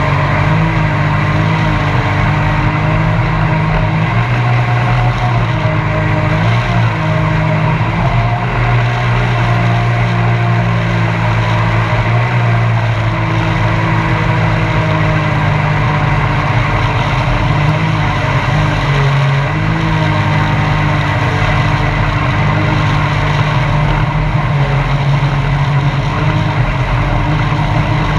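Mini jet boat's engine running steadily under way, its pitch wavering slightly up and down with the throttle.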